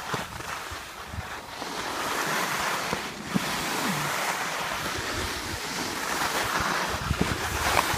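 Skis hissing and scraping over packed snow on a downhill run, with wind buffeting the microphone.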